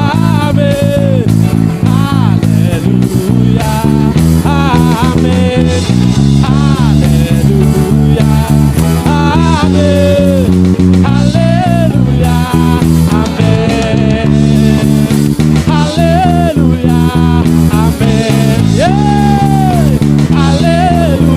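Worship band playing a passage without words: electric guitars and bass hold sustained chords under a melody line that slides and bends in pitch.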